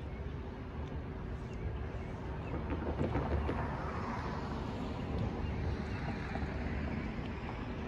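A car drives past on the street, its tyre and engine noise swelling about three to four seconds in over a steady low rumble of traffic.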